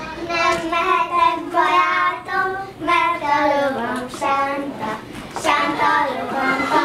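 Young girls singing a children's song, held notes rising and falling in short phrases with brief breaks between them.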